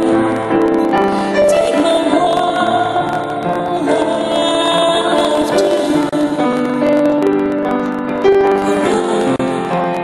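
A woman singing into a handheld microphone, accompanied by a grand piano, with long held notes in the voice.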